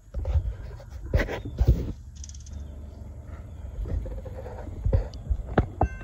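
Wind buffeting and handling noise on a phone microphone, an uneven low rumble with sudden thumps. Near the end, a distant diesel locomotive horn starts sounding a steady chord.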